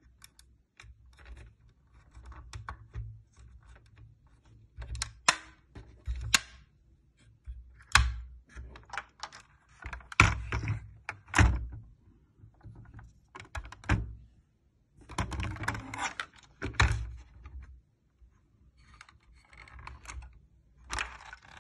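Toy model Lamborghini being handled: its opening doors, hood and tailgate clicking open and shut, and the model knocking on the floor. The clicks and thuds come in scattered clusters, the loudest around the middle.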